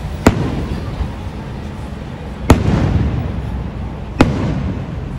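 Aerial firework shells bursting: three sharp bangs about two seconds apart, each trailing off in an echo.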